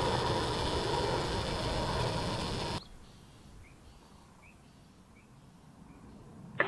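Twin-engine widebody jet airliner passing low overhead on approach: a steady loud engine rumble with a whine, which cuts off suddenly about three seconds in. After that there is only faint outdoor quiet with a few small bird chirps.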